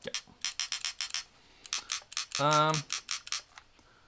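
Dye M3s paintball marker clicking as it is handled: two runs of quick, light clicks, with a short hummed 'hmm' between them.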